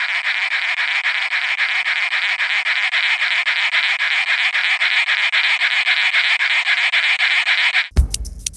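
An insect's buzzing stridulation from an ultrasonic recording, a dense hissing buzz pulsing several times a second. It cuts off about 8 seconds in, and a different sound with low thumps and clicks begins.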